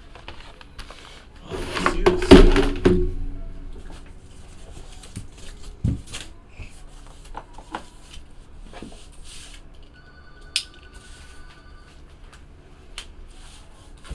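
Large flat cardboard box being lifted, turned over and set down on a table, loudest about two seconds in, followed by light taps and clicks as it is handled.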